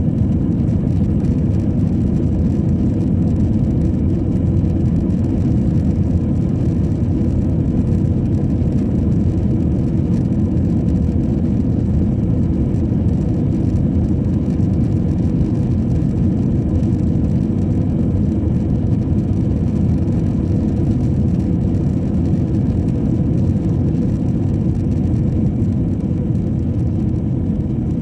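Airliner cabin noise over the wing of an Airbus A320-family jet climbing out after takeoff: a loud, steady low rumble of jet engines and rushing air, with a faint steady hum on top, easing slightly near the end.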